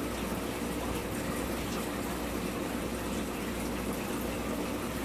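Steady rush of running water from aquarium filtration, with a low steady hum underneath.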